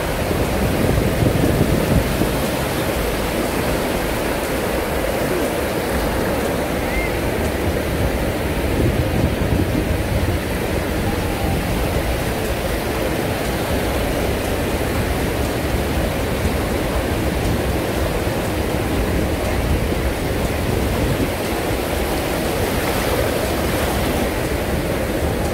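Waves breaking and washing up a sandy beach: a steady rushing noise, with wind rumbling on the microphone.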